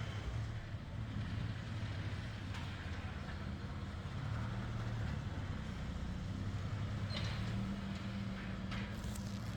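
The 1995 Acura Legend LS's 3.2-litre V6 running at low speed while the car is eased into a tight parking spot, with a steady low engine note. There are two short high-pitched sounds near the end.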